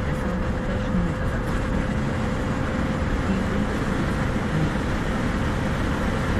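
Steady road and engine noise heard inside a car's cabin at motorway speed, with a faint steady hum.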